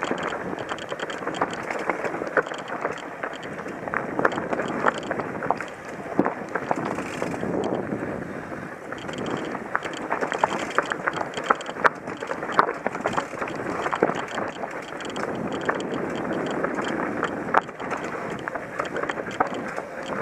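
Mountain bike descending rough dirt singletrack: a steady rush of tyre and wind noise, with frequent sharp clicks and rattles as it rolls over rocks and roots.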